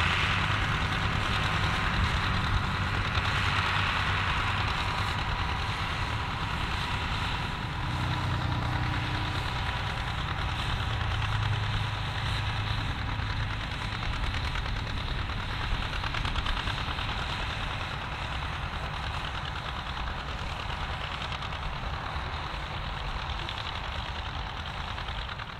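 John Deere farm tractor engine running steadily under load while pulling a plow through the soil.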